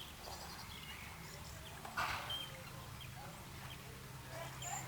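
Harbour-side outdoor ambience: scattered short bird chirps over a steady low hum, with a brief rushing noise about two seconds in.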